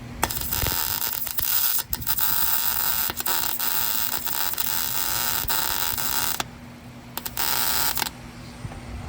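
Electric welding arc crackling and hissing while a nut is welded onto a broken exhaust bolt stub to back it out: one long run of about six seconds, then two short bursts near the end.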